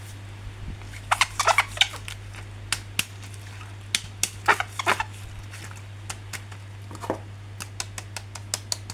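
Crinkling and clicking of plastic packaging and a plastic action figure being handled during unboxing, in irregular bursts with scattered sharp ticks, over a steady low hum.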